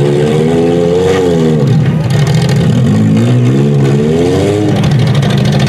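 Demolition derby compact cars' engines revving hard, the pitch rising and falling several times as the cars accelerate and back off.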